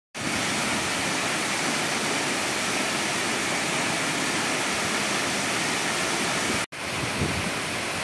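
A large waterfall pouring, a steady rush of falling water. It cuts out for an instant about two-thirds of the way through, then carries on.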